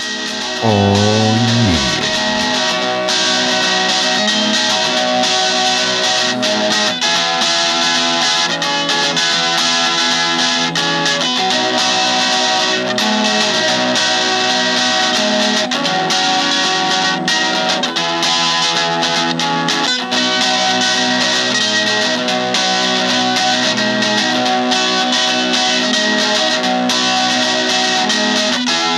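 Background music led by guitar, playing steadily throughout, with a short spoken "Oh" about a second in.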